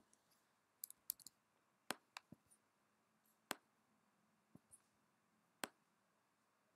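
Faint computer mouse clicks, some single and some in quick pairs, spaced irregularly.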